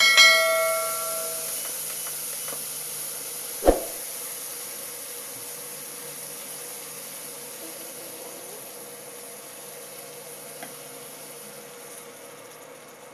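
Beans and potatoes sizzling in hot oil in a non-stick kadai just after a wet spice paste goes in, the sizzle fading steadily. At the start a steel bowl clinks against the pan and rings briefly, and there is a single sharp knock about four seconds in.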